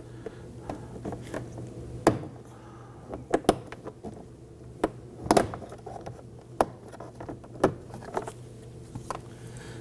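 A plastic trim tool working an armrest pad loose from a Toyota Camry's plastic interior door panel: scattered sharp clicks and knocks at irregular intervals, over a steady low hum.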